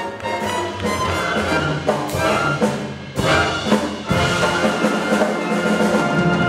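Student jazz big band playing live: saxophones, trumpets and trombones over piano, upright bass and drums. Punchy ensemble hits come about two, three and four seconds in, and the band then holds a sustained chord.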